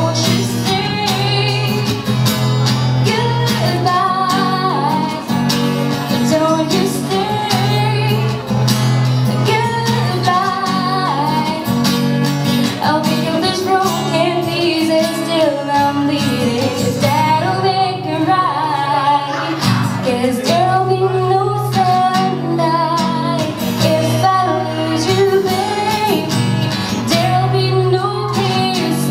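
A woman singing a pop ballad into a microphone, accompanied by an acoustic guitar played with steady strumming and picking.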